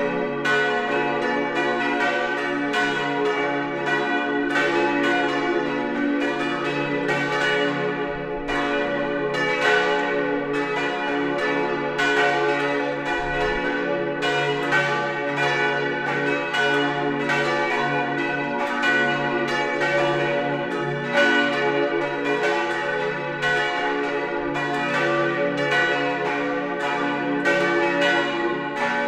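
Full peal of a parish church's five swinging bronze bells, the main four tuned D, F-sharp, A and B, the heaviest about 1.5 tonnes, all ringing together in a steady, overlapping stream of strikes, a few a second.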